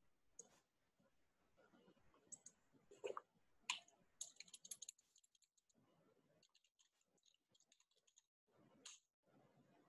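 Faint computer keyboard and mouse clicks: scattered single clicks, then quick runs of keystrokes about four seconds in and again around seven seconds.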